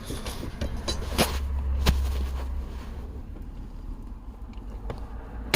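A few sharp clicks and knocks from the stow-and-go seat's mechanism as its drive rod is turned by hand, over a low rumble from about half a second to three seconds in. The loudest click comes near the end.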